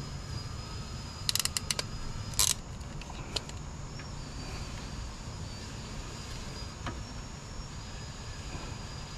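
Wiring work being handled by hand: a quick run of small clicks about a second in and a sharper click about two and a half seconds in, from a hand wire crimper and plastic butt connectors. Under them runs a steady low hum and a thin, steady high whine.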